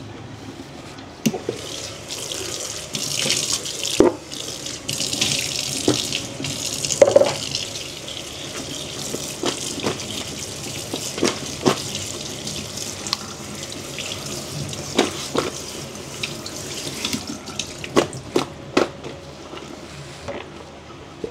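Kitchen tap running onto taro slices in a plastic colander, the water splashing into a stainless steel sink, with scattered knocks as the colander and a plastic basin are handled. The water stops about three-quarters of the way through, and a few more knocks follow.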